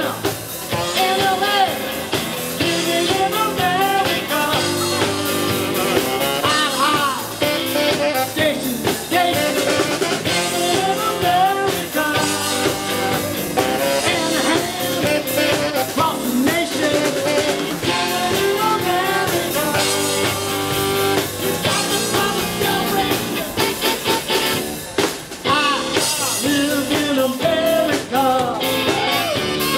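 Live rock band playing: electric guitar, electric bass and drum kit, with a male voice singing over them.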